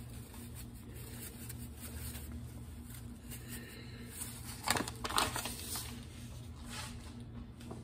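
Soft kitchen handling sounds, a light rustling with a few short sharp knocks about five seconds in, as cornmeal mix is sprinkled into a dish. A steady low hum runs underneath.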